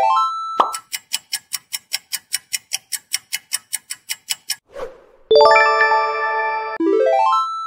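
Quiz-game sound effects. A rising run of chime notes ends, then a countdown timer ticks evenly about four times a second for some four seconds. A short swish leads into a loud, bright bell-like chime for the answer reveal, followed by another quick rising run of notes.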